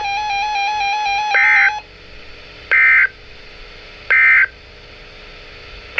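A steady electronic tone that stops just under two seconds in, then three short bursts of EAS digital data tone (SAME end-of-message code) about a second and a half apart, signalling the end of the emergency alert.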